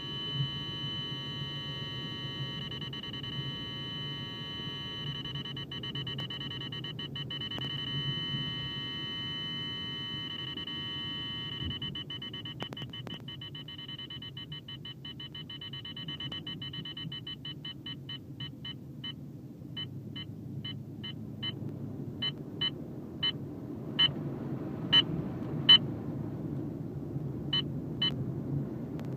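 Valentine One radar detector sounding a K-band alert over the car's road rumble. A continuous tone breaks into separate beeps about twelve seconds in, and the beeps become more widely spaced. On this detector a faster beep rate means a stronger signal, so the thinning beeps show the K-band source fading.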